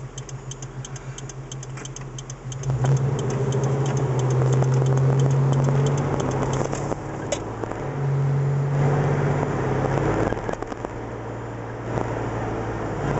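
Car engine idling with a fast, even ticking, then pulling away about two and a half seconds in: it gets louder and fuller, eases off twice and picks up again as the car drives on.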